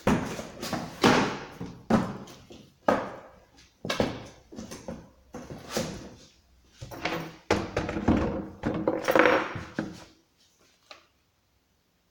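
Handling noises from unpacking: a string of knocks, thunks and scrapes about once a second, ending about ten seconds in.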